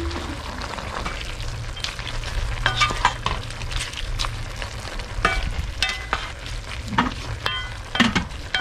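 Wooden spatula stirring and scraping chopped meat and vegetables around a large aluminium pot, with the food sizzling in its sauce. The scrapes come in short strokes about once a second over a steady sizzle.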